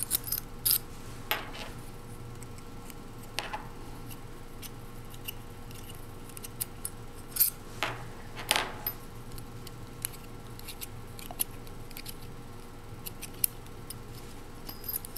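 Scattered small metallic clicks and taps: screws being spun out of a metal probe-nest base and small metal parts set down on a wooden table.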